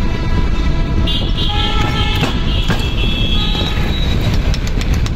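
Steady rumble of road traffic with vehicle horns sounding for a couple of seconds, and light metal clinks of starter-motor parts being handled near the end.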